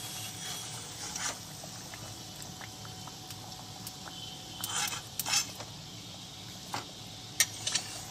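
Kachoris sizzling steadily in hot oil in a steel kadhai, with a slotted metal spatula clicking and scraping against the wok several times. The kachoris are being lifted out after a first, partial fry.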